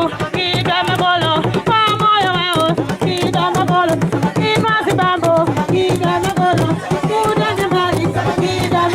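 Music: singing with a wavering, ornamented melody over drums, the drum strokes frequent and steady.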